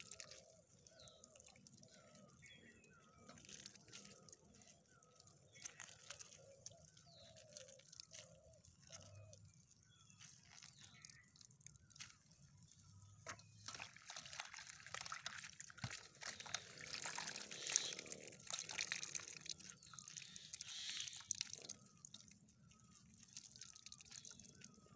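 Faint dripping and trickling of juice into a metal basin as hands squeeze salted bitter gourd slices, wringing out the bitter liquid. The dripping is denser and louder for several seconds in the second half.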